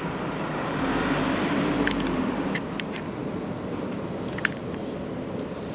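A road vehicle passing nearby over steady street noise, its low hum swelling about a second in and fading by about three seconds. A few sharp light clicks come in the middle and once more later on.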